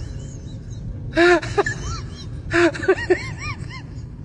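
Dog whining in short, rising-and-falling whimpers, in two bouts about a second in and near three seconds, over a steady low hum.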